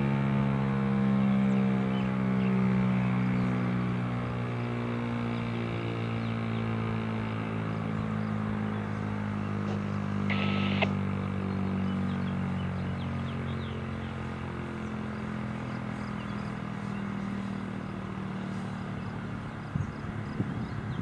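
ASC T-135 AC/DC outdoor warning siren winding down at the end of its test: its tone drops slowly in pitch and fades, with some rise and fall in loudness early on. A short high chirp cuts in about halfway through.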